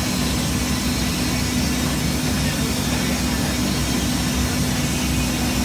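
Panel profile sanding machine running, its rotating brush heads of abrasive sanding strips working over drawer panels on the feed conveyor: a steady mechanical noise with a constant hum under it.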